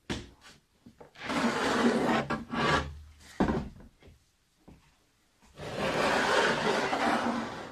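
Hard plastic rifle case being opened: a few latch clicks at the start, then two long stretches of plastic scraping and rubbing against the table as the case and lid are moved, with a knock between them.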